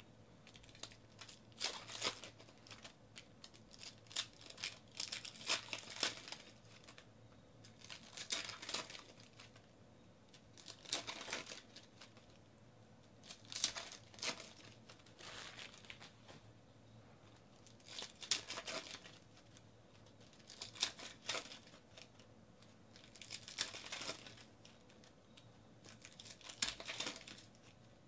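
Foil wrappers of trading-card packs crinkling and tearing as they are ripped open and handled, in short bursts every two to three seconds.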